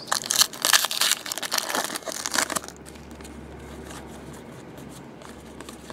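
A foil baseball card pack being crinkled and torn open, loudest in the first two and a half seconds. After that comes softer rustling of the cards being handled.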